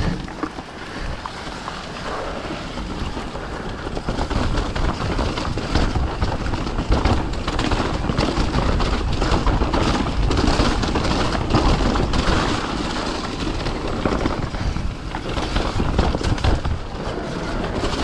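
E-mountain bike riding fast down a rough, wet trail: a continuous rumble of tyres and wind on the microphone, broken by many knocks and rattles from the bike over bumps. It gets louder about four seconds in.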